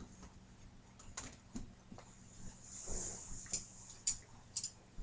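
A few light clicks and a soft rustle in a quiet room: a presenter handling a poster board and his paper notes at a music stand.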